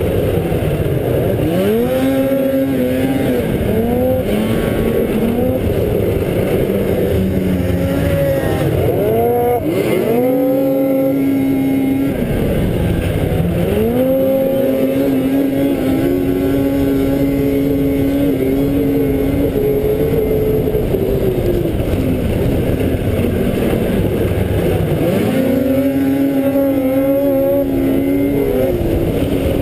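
Racing snowmobile engine at high revs, heard from the rider's helmet, its pitch dropping off and climbing again as the throttle is lifted and reapplied through the turns, then holding steady on the straights. Wind rush over the helmet microphone runs underneath.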